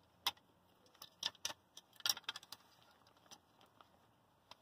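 Scattered sharp clicks and light clatter as a small air compressor's electric motor and gear are handled and knocked against its opened plastic housing, with a dense cluster of clicks about two seconds in; the motor is not running.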